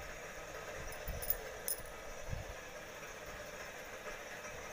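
Low, steady background noise, with a few small sharp clicks about a second in and a soft low thump a little later.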